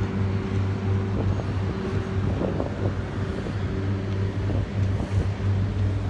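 Heavy vehicle engine idling steadily, a constant low hum that holds one pitch throughout.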